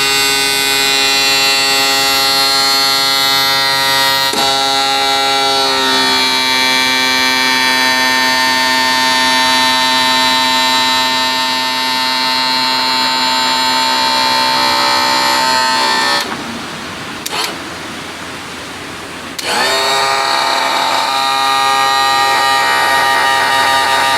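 Electric tilt-and-trim pump motor on a 1992 Johnson 60 hp outboard running with a steady whine, its pitch shifting slightly about six seconds in. It stops about sixteen seconds in and starts again about three seconds later. The trim is being cycled up and down to bleed air and settle the fluid level after topping up.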